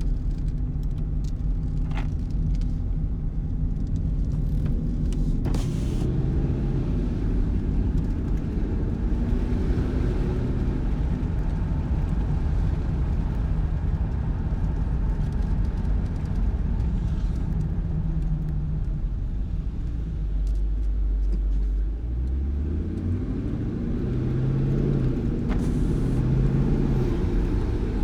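Dodge Charger R/T's 5.7-litre Hemi V8, breathing through a freshly fitted AFE cold air intake, running steadily while the car drives. Near the end the engine note drops briefly and then climbs as the car accelerates.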